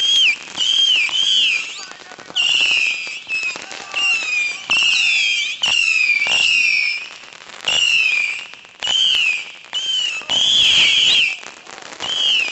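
Multi-shot whistling firework going off in a rapid string of about a dozen shots: each a short shrill whistle that bends in pitch, with sharp cracks in between. The barrage stops abruptly at the end.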